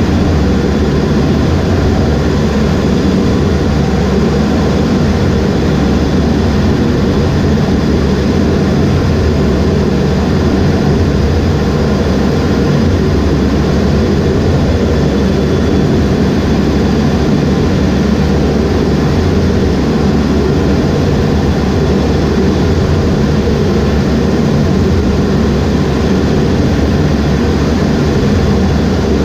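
Steady jet engine noise inside the cockpit of an EA-18G Growler, its two turbofans running at an unchanging setting. The noise is loud and even, with no spool-up or launch in it.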